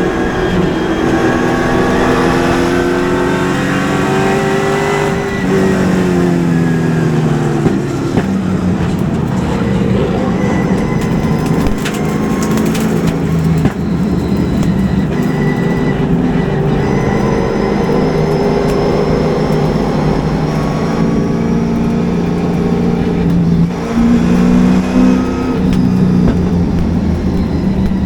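Super late model race car's V8 engine running hard, heard from inside the car, its revs rising and falling repeatedly as the driver comes off and back onto the throttle.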